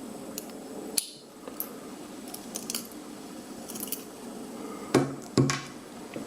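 Small metal clicks and light taps as the pins and springs of a pin-tumbler rim cylinder are worked out with a small tool, with two louder knocks of metal on a hard surface about five seconds in.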